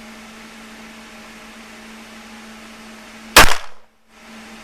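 A single pistol shot about three and a half seconds in, sharp and very loud, after which the sound cuts out for about half a second.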